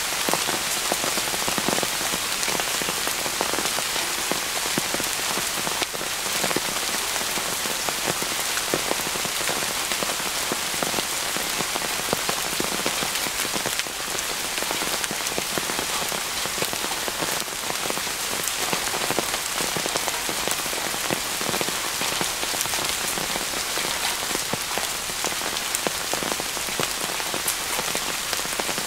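Heavy rain falling steadily, drops striking a tarp shelter and the surrounding forest in a dense, unbroken hiss with fine ticks of individual drops.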